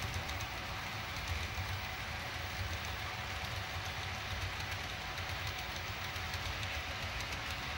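Model freight train rolling along the layout's track, its cars' wheels making a steady low rumble with faint rapid ticking.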